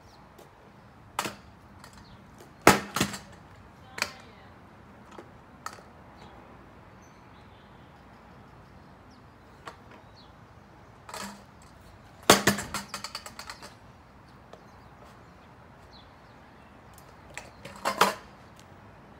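Metal stunt scooter being slammed and forced against concrete while the rider strains the handlebar to bend and snap it: scattered sharp clanks and knocks. About twelve seconds in, one loud clank is followed by a quick rattle that dies away, and there is another pair of knocks near the end.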